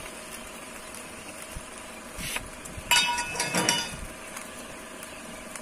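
A metal skewer clanks and rattles against a charcoal barbecue grill for about a second, its strikes ringing, about three seconds in, as the roasting pork is turned. A steady hum runs underneath.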